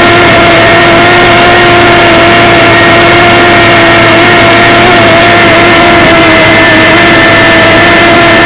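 FPV model airplane's motor and propeller running in flight, picked up by the plane's onboard camera: a loud, steady drone that holds nearly one pitch with slight wobbles, over a rushing hiss of wind past the camera.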